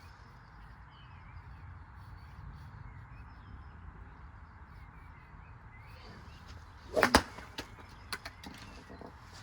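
Washing machine running with a steady low rumble, with two loud sharp knocks about seven seconds in and a few lighter clicks after, as golf balls and weights are tumbled in the drum.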